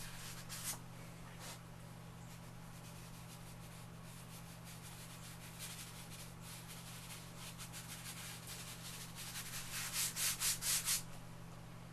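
Lecturer's chalk rubbing across the drawing surface in short, irregular strokes, with a quick run of about four louder strokes near the end.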